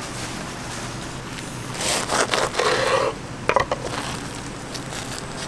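Crisp breadcrumb crust of a deep-fried croquette crackling and crunching as gloved hands pull it apart, for about a second, starting about two seconds in, followed by a few sharp clicks.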